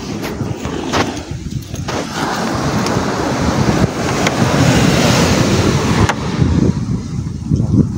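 Wind buffeting the phone's microphone over sea noise, a loud rushing rumble that swells about halfway through, with a few sharp clicks.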